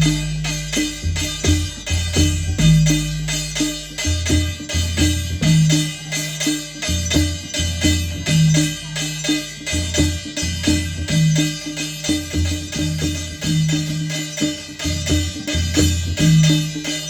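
Adivasi folk percussion: the deep, pitched strokes of a mandal barrel drum with a dhulgya drum and a struck metal thali plate ringing over them, playing a steady, repeating rhythm.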